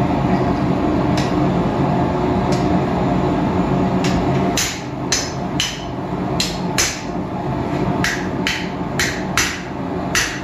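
Hand hammer striking a steel punch held on red-hot flat bar over an anvil, driving a hole through the hot iron. A few spaced blows come first, then steady ringing strikes about two a second from about halfway. A steady roar under the first half drops away at that point.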